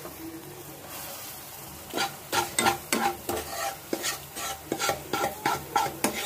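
Steel spoon stirring roasted moong dal flour into thick hot milk in a metal kadhai. There is a faint hiss at first, then from about two seconds in come repeated clinks and scrapes of spoon on pan, a few a second.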